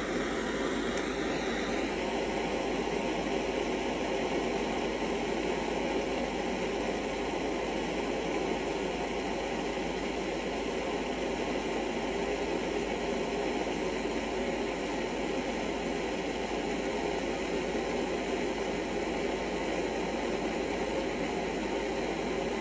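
Handheld butane jet torch burning with a steady hiss, its blue flame heating the metal tip of a dab tool.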